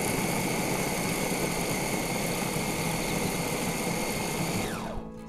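Electric food chopper's motor running at a steady high whine as its blades chop shallots, garlic and chillies, then spinning down with a falling pitch about four and a half seconds in.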